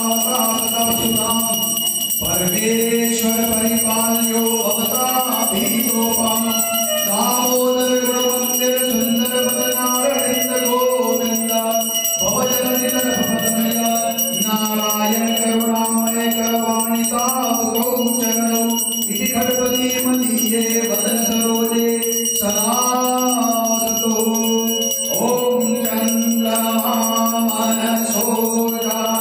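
Hindu devotional aarti music: a voice sings a melody in phrases over a steady drone, with bells jingling and ringing throughout.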